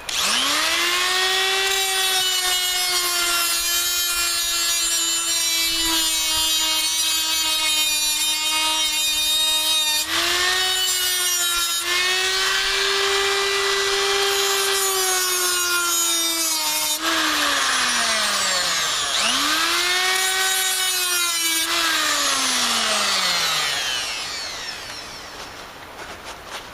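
Handheld angle grinder spinning up and grinding into a steel rivet head on the swing-set frame, a steady high whine with a harsh rasp as the wheel bites. It eases off briefly about ten seconds in, winds down, is triggered again for a short burst and then spins down to a stop near the end.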